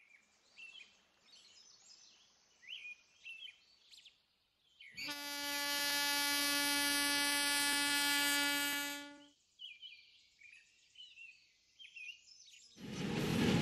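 Birds chirp faintly, then about five seconds in a locomotive horn sounds one long, steady blast of about four seconds that cuts off sharply. Near the end a train's rumble rises loudly.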